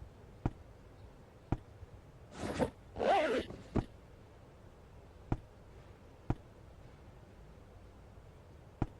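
Handling noises: about six sharp, isolated clicks and two short rustling swishes about two and a half and three seconds in.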